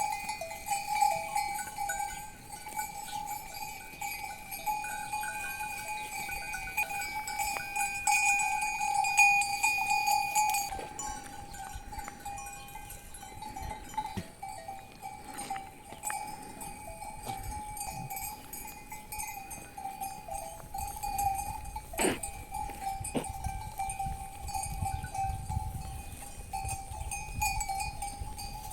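Livestock bells clinking and ringing continuously, as from a grazing herd. There is a sharp click about three-quarters of the way in, and wind rumbles on the microphone near the end.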